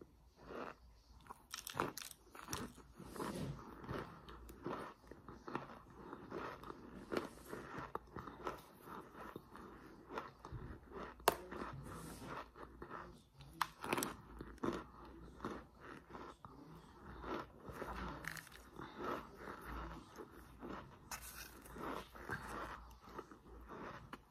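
Chunks of crockpot-baked Argo laundry starch being bitten and chewed close up, crunchy, with many short sharp crunches one after another.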